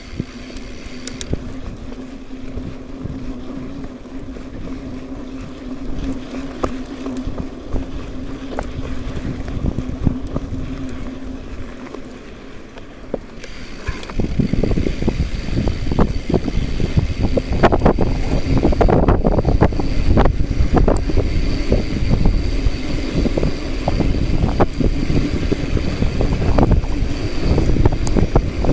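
Wind buffeting the microphone over a steady low hum, growing louder and rougher about halfway through.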